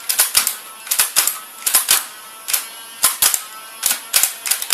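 Nerf Stockade blaster's mechanism clicking: sharp plastic clicks in quick clusters of two or three, about every half second to second, as the trigger is worked and the rotating barrel advances, over a faint steady flywheel motor hum.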